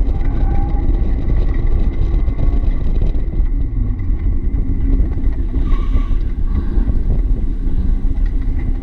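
1990 Mazda Miata's 1.6-litre four-cylinder engine running steadily at low speed, heard from inside the open cockpit with a heavy low rumble.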